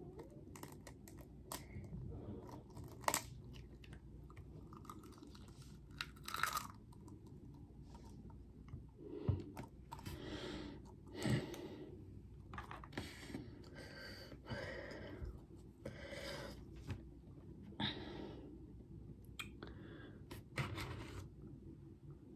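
Hard-boiled eggshells being cracked and peeled off by hand, with scattered faint crackles and sharper crunches of shell.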